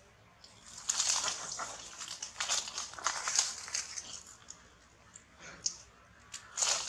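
Leaves and twigs rustling and crackling in irregular bursts of many sharp clicks, densest for the first few seconds after a quiet start, with another short burst near the end.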